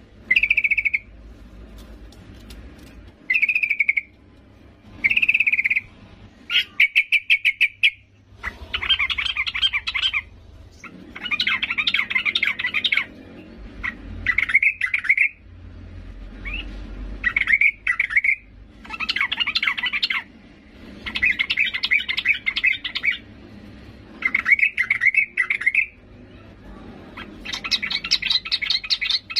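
Female yellow-vented bulbul calling: about a dozen bouts of chattering notes, a second or two apart. The early bouts are short; from about eight seconds in they grow into longer chattering phrases. This is the female call that bird keepers play to draw a male into singing.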